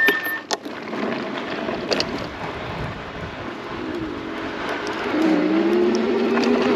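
Electric off-road bike's motor whining, rising in pitch about four seconds in as it speeds up and then holding, over steady tyre and gravel noise and wind, with a few sharp knocks early on.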